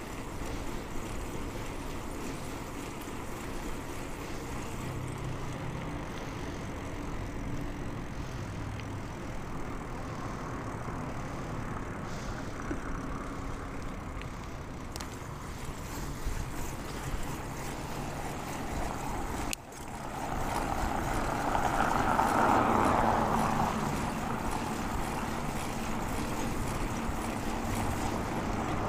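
Steady wind and road noise from a bicycle ride, picked up on a clip-on lapel mic. The sound drops out for an instant about two-thirds of the way through, then swells louder for a few seconds.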